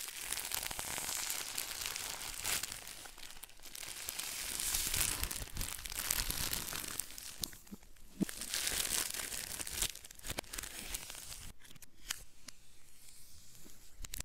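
Clear plastic shrink wrap being torn and peeled off a cardboard retail box, crinkling in several long surges, with a few sharp crackles near the end.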